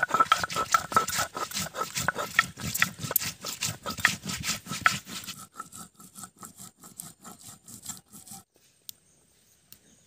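Stone roller crushing and grinding dried red chillies on a flat grinding stone (shil-nora), in quick repeated scraping strokes, about four or five a second. The strokes are loud for the first five seconds, grow lighter and stop about eight seconds in.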